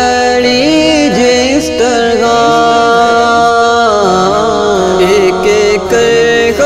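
Music from a devotional Urdu naat: a wavering, ornamented melody over a steady held note.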